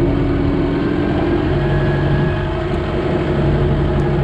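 Kubota M6060 tractor's four-cylinder diesel engine running while it warms up, its hydraulic shuttle oil still cold and sluggish. The engine note shifts slightly about a second and a half in.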